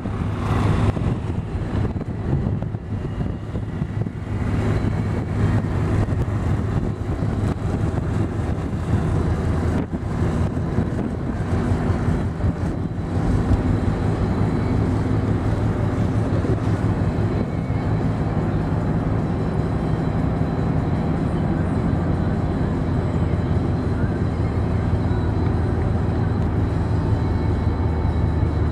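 Steady engine and road noise of a moving car, heard inside the cabin as a constant low drone, with a few brief knocks.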